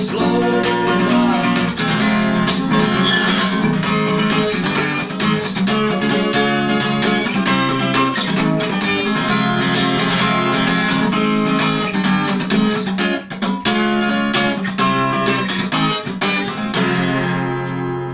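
Acoustic guitar strummed in steady chords without singing, the sound dying away near the end.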